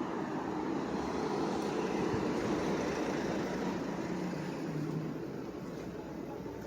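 Passing vehicle noise on a city street: a steady rumble that swells about two seconds in and eases off toward the end.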